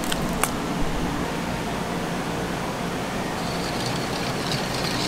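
Steady hum of kitchen ventilation. In the first half-second there are two light clicks as sliced apples are tipped into a steel bowl of sauce, and from about two-thirds of the way through comes a wet stirring sound as the sauce is mixed.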